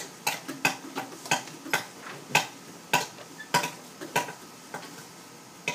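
Repeated sharp taps of a hard object, about two a second in an uneven rhythm, thinning out in the last second or two.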